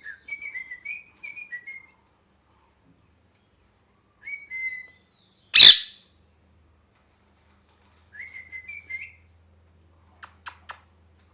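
Ringneck parrot giving runs of short chirps that fall in pitch, with one much louder, harsh burst about halfway through. Near the end come three sharp clicks in quick succession.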